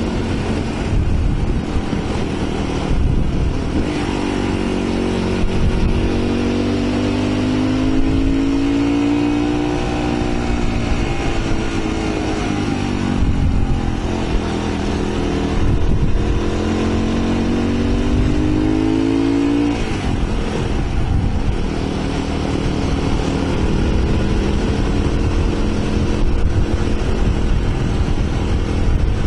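Motorcycle engine running under way, its note climbing as the throttle opens and dropping back twice, around 13 and 20 seconds in, over steady wind and road noise.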